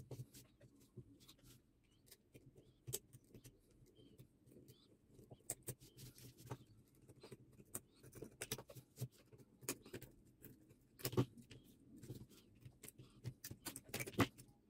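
Small metallic clicks and snips of side cutters cutting and prying at the nickel strip tabs that join a drill battery pack's BMS board to its old lithium cells. The clicks come sparsely at first, then more often through the second half.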